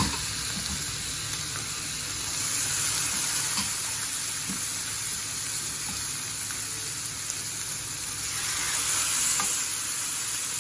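Boneless chicken chops sizzling on a hot grill pan, a steady frying hiss with a few faint pops that swells briefly near the end.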